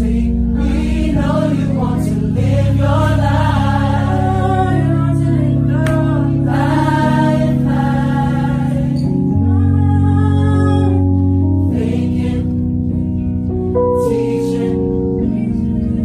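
Background music: a gospel choir singing over sustained chords.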